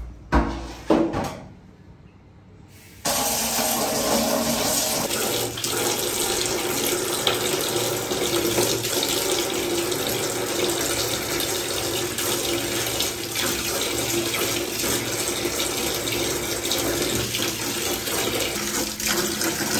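A few knocks, then about three seconds in a wall-mounted mixer tap turns on and runs steadily, its stream splashing into a plastic basin as the basin fills.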